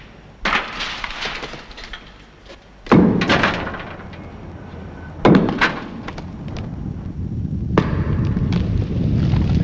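Heavy blows of a pickaxe against masonry, four strikes about two and a half seconds apart, each followed by crumbling, clattering debris. Near the end a low rumble builds.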